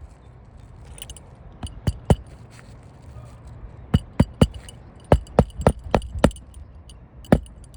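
Hammer driving a roofing nail into an asphalt shingle: sharp metallic strikes in quick groups, about a dozen in all, with pauses between the groups.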